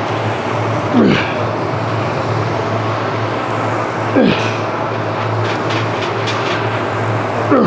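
A man's short strained grunts falling in pitch, three of them about three seconds apart, one with each slow rep of a Smith machine bench press, over a steady low hum.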